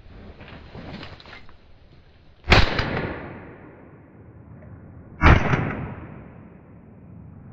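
Two shots from a Benelli shotgun, about three seconds apart, each trailing off in an echo. Some soft rustling comes before the first shot.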